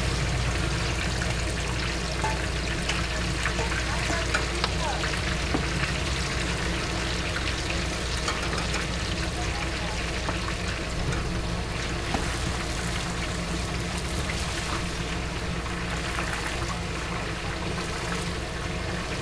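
Hot oil in a wok sizzling and crackling steadily as pieces of braised duck deep-fry, over a steady low hum, with a few light clicks.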